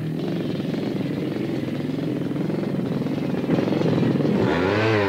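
Two-stroke motocross motorcycle engine running, its pitch shifting with the throttle, then revving quickly up and down near the end.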